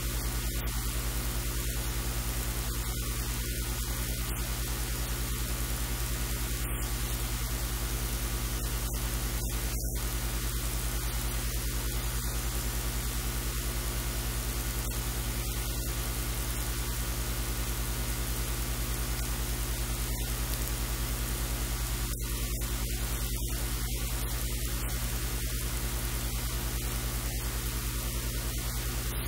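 Steady hiss and static with a low, constant electrical hum, unchanging throughout; no distinct cutting or other sounds stand out above it.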